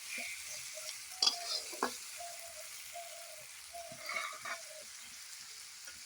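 Chopped tomatoes with onion and garlic paste sizzling in hot oil in a kadai while a spatula stirs and scrapes through them, with a couple of sharp knocks of the spatula against the pan.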